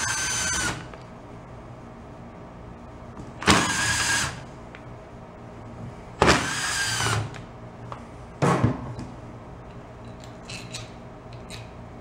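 Cordless drill/driver whirring in four short bursts, about a second each and the last one shortest, as it backs out the screws holding the fan motor's end cap. Its whine drops as each burst stops. A few light clicks follow near the end.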